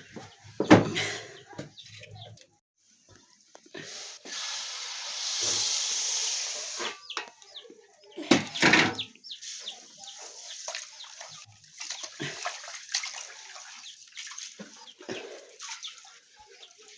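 Chickens clucking in short calls, with water pouring for about three seconds near the middle.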